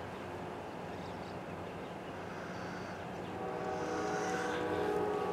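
Distant Norfolk Southern diesel locomotive horn sounding a steady chord as the train approaches, coming in about three seconds in and growing louder, over a low steady hum.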